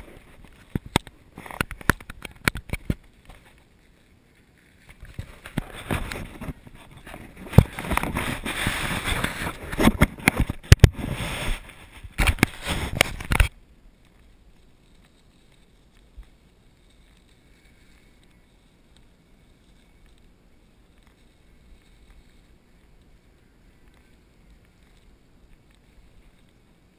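Wind and handling noise on an action camera's microphone: irregular crackling and knocking that builds to a dense rumble, then drops suddenly to a faint hush about 13 seconds in.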